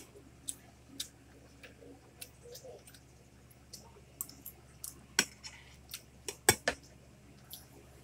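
Metal spoons clinking and scraping against plates of rice, in scattered sharp clicks. The loudest few come close together a little past the middle.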